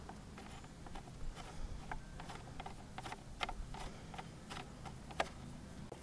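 Faint, irregular light clicks and taps, the sharpest about five seconds in, over a faint low hum.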